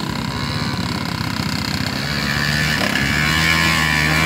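Small two-stroke Yamaha V80 step-through motorcycles running as they ride up a muddy trail. The nearest engine gets louder and holds a steady note from about three seconds in as it comes up alongside.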